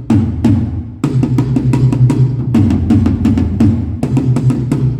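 Two rack toms of a drum kit struck again and again with sticks during a soundcheck, each hit a short low boom with a stick click on top. The strokes come about three in the first second, then speed up to about five or six a second.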